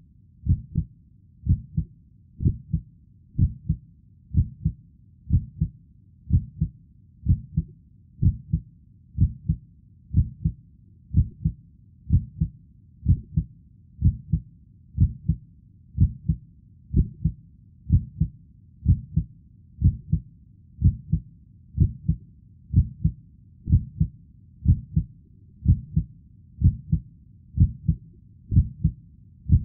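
Heartbeat sound: steady, low paired thumps, lub-dub, repeating about once a second.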